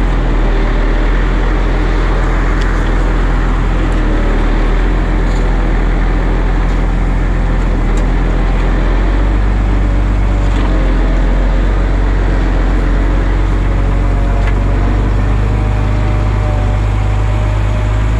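Volvo G710B motor grader's diesel engine running steadily under load as the grader moves along and its blade scrapes through gravel. The engine's low note strengthens about halfway through, and a whine edges up in pitch near the end.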